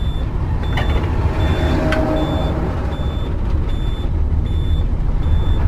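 Motorhome bus's diesel engine idling with a steady low rumble, while a short high-pitched beep repeats a little faster than once a second, like a vehicle warning or reversing beeper.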